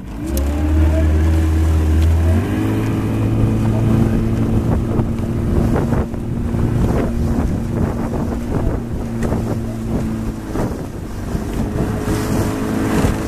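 Coaching launch's motor running steadily under way, its pitch stepping up about two seconds in and shifting again near the end, with wind on the microphone.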